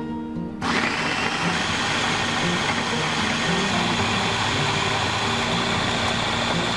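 Electric mini food chopper's motor starts about half a second in and runs steadily, its blades chopping tomatoes into a pulp, with a steady high whine over the whir.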